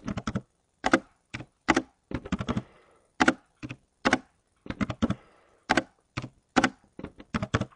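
Typing on a computer keyboard: irregular clusters of sharp key clicks as numbers and spaces are entered.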